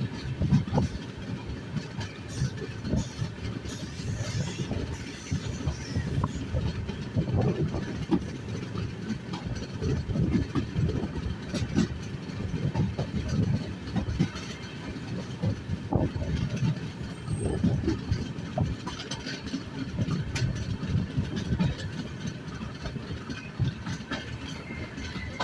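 Passenger coach of an express train running at speed: a steady low rumble of wheels on rail, with irregular clatter and knocks from the track and the coach.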